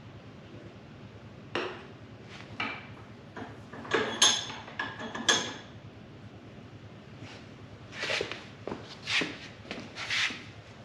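Scattered metallic clinks and knocks of tools and engine parts being handled on a workbench, with a cluster of sharper, briefly ringing clanks about four to five seconds in and another run of knocks near the end.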